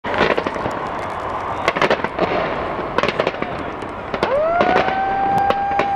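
Fireworks going off in quick volleys: a dense string of bangs and crackles over a continuous wash of noise. About two-thirds of the way through, a long high tone rises and then holds steady.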